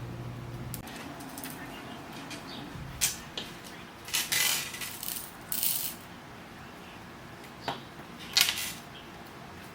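Small beads clicking and rattling against each other in a few short bursts, as they are handled and strung. A low hum stops about a second in.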